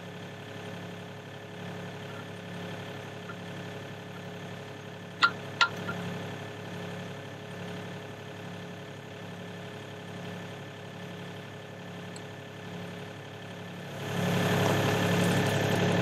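Diesel engine of a Sany SY35U mini excavator idling steadily with a slow pulsing hum. About five seconds in come two sharp clicks half a second apart as hydraulic hose fittings are handled, and near the end the sound steps up louder.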